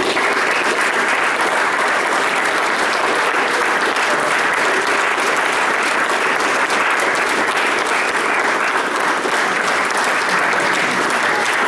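Steady applause from a group of people clapping their hands, a dense run of overlapping claps that holds level throughout.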